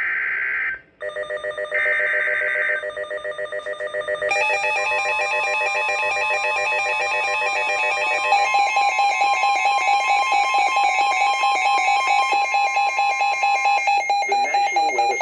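NOAA Weather Radio alert for a severe thunderstorm warning. First come the buzzing bursts of the SAME digital header, one at the start and one about two seconds in. A weather radio's rapidly pulsing electronic alarm then sets in and keeps going, with a steady alert tone joining it about four seconds in.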